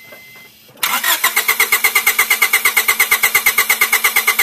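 Honda four-cylinder engine being cranked by its starter with the plug wires off, so it turns over without firing: an even, rapid chugging of about eight to nine compression pulses a second that starts about a second in. This is the cranking for a compression test, which here brings the cylinder up to about 180 psi.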